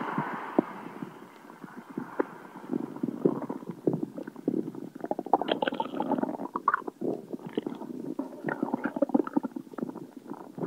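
A person's stomach gurgling and sloshing with freshly chugged soda: irregular gurgles, bubbly pops and clicks, coming thicker and faster from about halfway.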